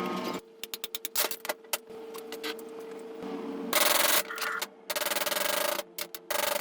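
Workshop restoration sounds on an air screwdriver's metal parts: a quick run of sharp clicks and taps, then two longer bursts of rough abrasive rubbing noise.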